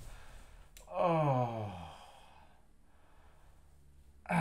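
A man sighs once, a long sigh with his voice falling in pitch, about a second in; another vocal sound starts just at the end.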